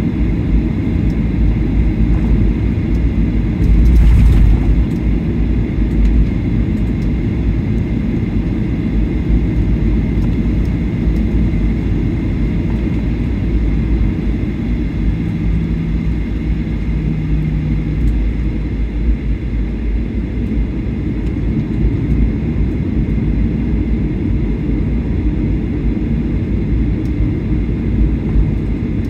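Cabin noise inside a Boeing 737-800 while it taxis: the CFM56 engines at low power and the rolling gear make a steady low rumble, with a faint steady high tone over it. A brief louder bump about four seconds in.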